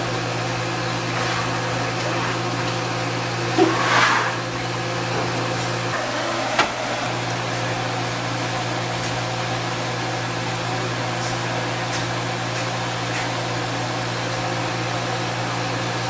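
Steady mechanical hum of a running motor, with a brief rustle about four seconds in and a sharp click about six and a half seconds in.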